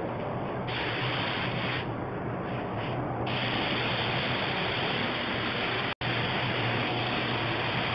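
Compressed-air spray gun hissing steadily as finish is sprayed along a wooden door panel. The upper part of the hiss thins out twice in the first few seconds, and a steady low hum runs underneath.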